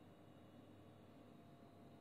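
Near silence: faint steady room tone with a thin, constant hum.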